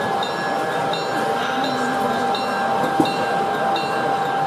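G scale model Norfolk Southern diesel locomotive moving slowly, its onboard sound system playing diesel engine sound with a locomotive bell ringing steadily, about two to three strikes a second.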